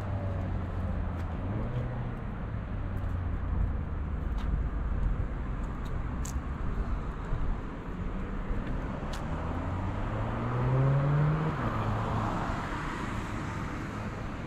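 Road traffic: cars driving past with a steady low rumble, and one vehicle's engine rising in pitch as it accelerates past about ten seconds in. A couple of faint clicks are heard in the middle.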